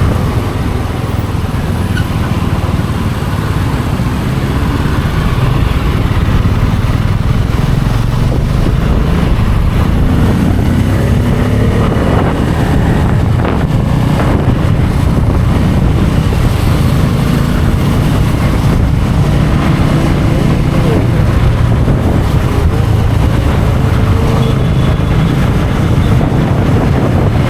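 Bajaj Pulsar F250's single-cylinder engine running steadily while the motorcycle is ridden, picked up by the rider's action camera.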